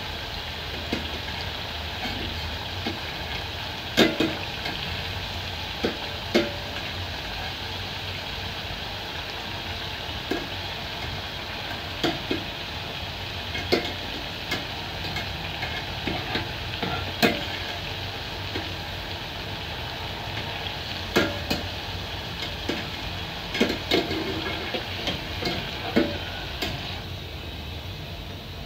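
Mandazi dough pieces deep-frying in hot oil, with a steady sizzle, while a metal slotted ladle stirs and turns them, clinking sharply against the pot every second or two. The sizzle eases near the end.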